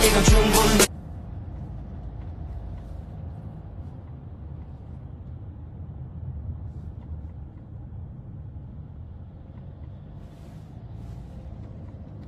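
Pop music cuts off suddenly about a second in, leaving a low, steady rumble of background noise picked up by a phone's microphone, with a few faint ticks near the end.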